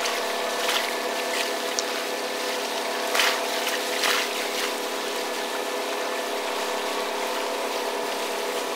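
Inland motor cargo ship's diesel engine running steadily as a constant drone, over the wash of river water, with a few short splashes of water in the first half.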